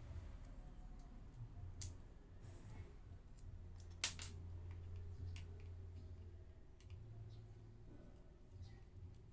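Small clicks and taps of a screwdriver and plastic mains plug being handled while the plug's terminal screws are worked, with a sharper double click about four seconds in, over a low steady hum.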